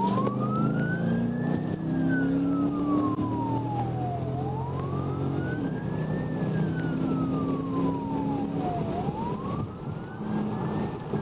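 Police car siren on a slow wail: the pitch rises over about a second and a half, then falls over about two and a half seconds, three times.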